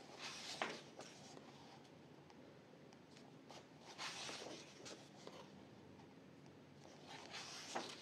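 Pages of a paperback colouring book being turned and pressed flat by hand: three brief, soft paper rustles, the middle one as a page is turned over.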